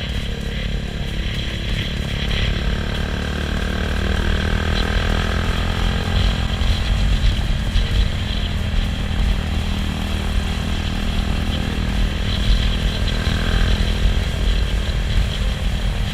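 Yamaha YZF-R125's single-cylinder 125 cc four-stroke engine running under way through an aftermarket Akrapovic exhaust, with a heavy low rumble of wind on the microphone.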